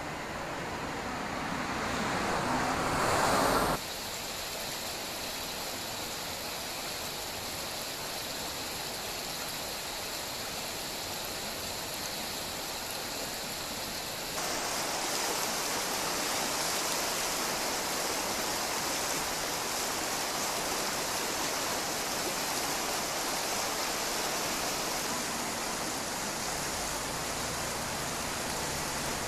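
A car approaching along the road, getting louder for a few seconds and then cut off abruptly. After that, a steady outdoor rushing noise with no distinct events, which turns brighter and a little louder about halfway through.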